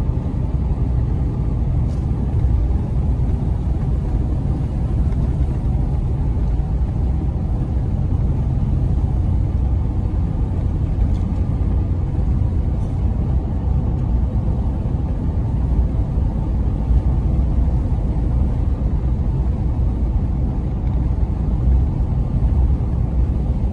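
A vehicle driving at a steady speed, heard from inside the cabin: a continuous low rumble of engine and road noise that stays level throughout.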